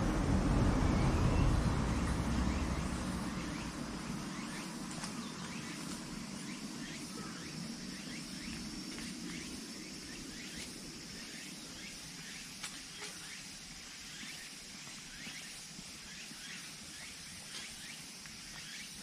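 Low rumble of a passing vehicle fades away over the first few seconds. It leaves quiet outdoor ambience with many faint, short chirps of small birds and a steady faint high hum.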